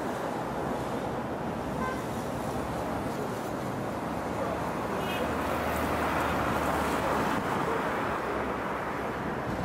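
Steady road and traffic noise with wind rushing over the microphone from a moving vehicle, growing louder for a couple of seconds past the middle. A short toot comes about two seconds in.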